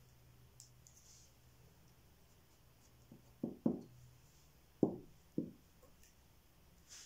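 Soft, low thumps of hands and a glue stick against paper on a wooden table while a fabric cut-out is glued down: three close together about three and a half seconds in, then two more about a second later.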